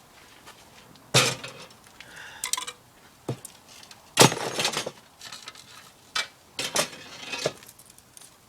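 Glass window panes clinking and knocking as they are worked loose and handled: a string of separate sharp clinks, the loudest about four seconds in.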